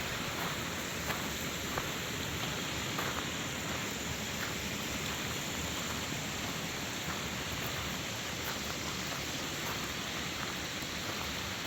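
Steady rushing of flowing water, with a few faint ticks near the start.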